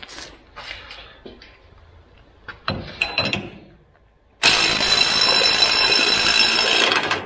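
A few handling clicks and knocks, then about four seconds in a Snap-on CT761 cordless 3/8-inch ratchet starts up and runs loudly and steadily under heavy load for about three seconds before cutting off abruptly. It is being pushed to about 180 foot-pounds, near the limit of what it can do.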